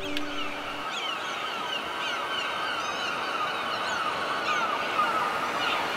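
A flock of birds calling: many short, falling calls overlapping one another over a steady hiss.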